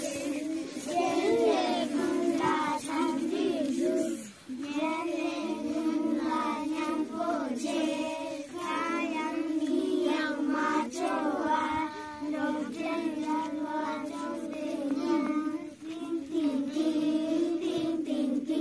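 A young child reciting a poem in a sing-song chant into a microphone, with short breaks between lines.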